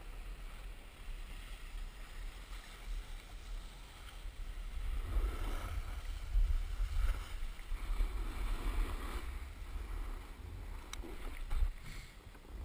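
Skis hissing and scraping over groomed snow on a downhill run, with wind buffeting the GoPro's microphone as a low rumble. The scraping grows louder in the middle of the run.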